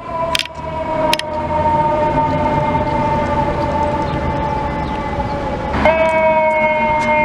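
Fire engine's Federal Signal eQ2B electronic siren sounding a slow, falling wail that jumps sharply back up in pitch about six seconds in, then starts falling again. A few sharp clicks come in the first second or so, over low engine rumble.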